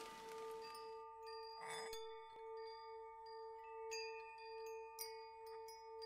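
Soft ambient background music: wind chimes ringing scattered high notes over a steady held drone. A soft rain-like hiss fades out in the first second.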